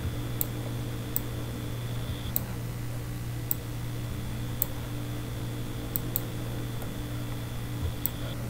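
Scattered single clicks of a computer mouse, about eight, a couple in quick pairs, over a steady low hum.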